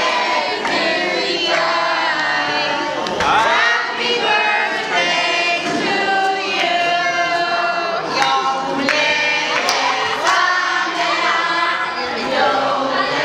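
A group of people singing a birthday song together, many voices at once.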